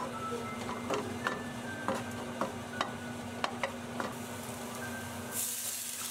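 A wooden spatula stirring sliced mushrooms frying in lard in a non-stick pan: about nine sharp clacks of the spatula against the pan over a light sizzle. Near the end, water poured into the hot pan gives a sudden loud hiss.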